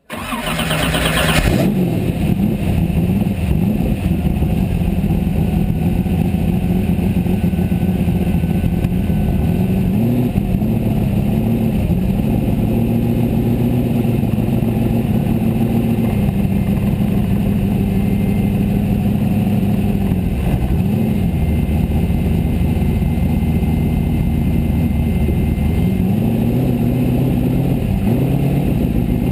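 Formula Offroad race buggy engine running steadily, heard from inside the cockpit, with a few short throttle blips about ten seconds in and again near the end.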